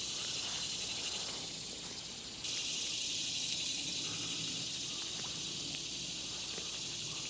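Steady, high-pitched buzzing chorus of summer insects. It dips slightly, then comes back louder abruptly about two and a half seconds in.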